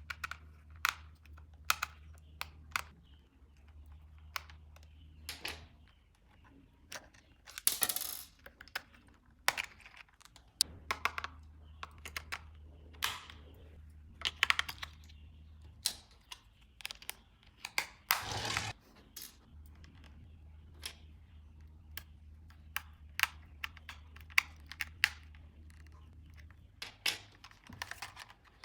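Irregular sharp clicks and taps of hard plastic toy parts and packaging being handled, with two longer scraping rustles, one about eight seconds in and one near eighteen seconds.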